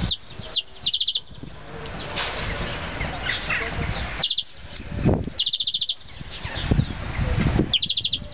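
Small songbirds calling: a short, fast trill heard three times, among scattered short chirps.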